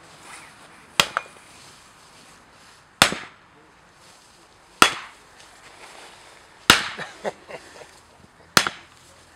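Five sharp cracks about two seconds apart, each followed a moment later by a smaller second crack, as a hard disk lying on a tree stump is struck and jolted.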